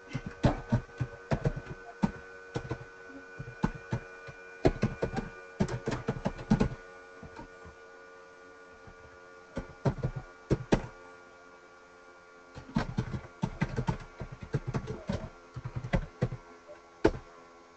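Computer keyboard typing in quick bursts of keystrokes with short pauses between them, over a faint steady hum.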